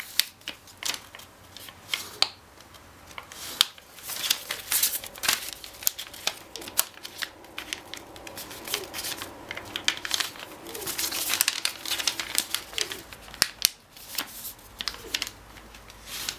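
A sheet of origami paper being folded and creased by hand, with a run of crisp crinkles and sharp crackles as the creases are reversed and pressed flat.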